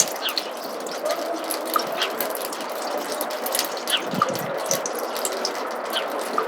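Snowmelt water dripping in a roof gutter: irregular drops, several a second, over a steady trickle.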